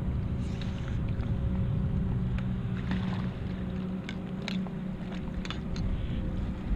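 Steady low engine drone with several held pitches. Scattered short clicks and light splashes come from a landing net being moved through the water.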